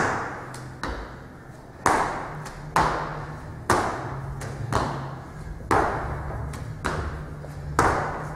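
Feet landing hard again and again on a large tractor tire and the rubber gym floor during tire jumps, a sharp thud roughly every second. A low steady hum runs underneath.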